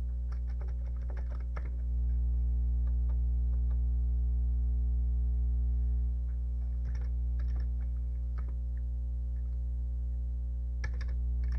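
Keys being typed on a Commodore 64 keyboard in three short flurries of clicks, over a steady low electrical hum.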